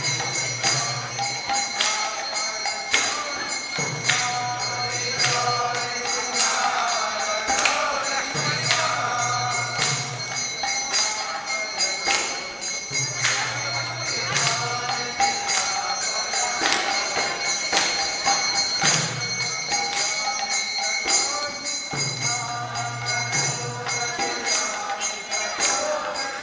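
Devotional kirtan music: voices singing a chant over small hand cymbals and bells jingling in a steady beat.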